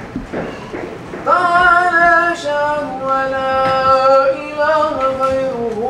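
A man's voice chanting a melodic religious recitation in long held notes that step from pitch to pitch. It starts about a second in, after low murmuring.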